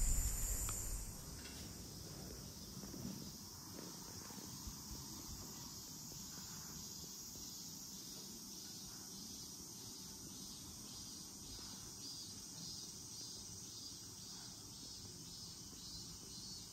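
Wind buffeting the microphone for about the first second, then insects chirring steadily and faintly, a high, lightly pulsing drone.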